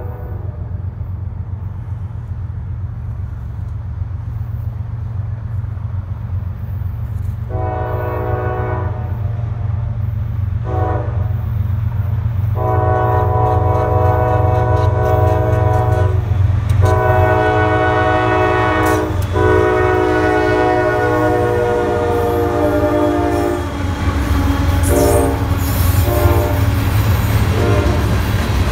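CSX diesel freight locomotive's air horn blowing a series of blasts: a medium one, a short one, three long ones, then a few short toots near the end. Under it a low rumble grows louder as the train approaches, and near the end freight cars roll past with wheel noise on the rails.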